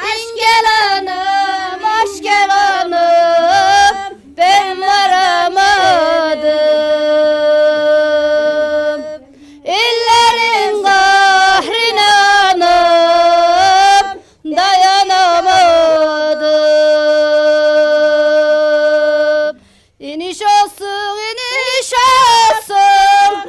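Women singing a traditional henna-night song without accompaniment, in long phrases that end on held notes, with short pauses for breath between phrases.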